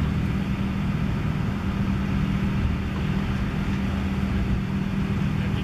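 Steady low machine hum: a constant drone with rumble beneath it, unchanging throughout.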